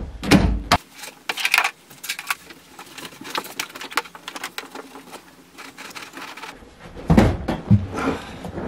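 Knocks, clicks and rustles of a Honda Civic's rear seat being handled and fitted into place, with heavier thumps in the first second and again near the end.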